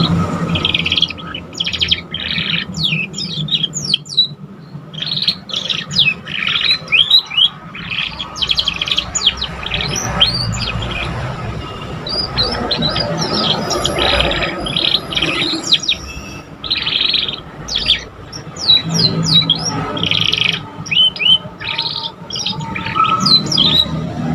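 Young domestic canaries twittering as they learn their song: quick clusters of short, sharply falling chirps, over a steady low background hum.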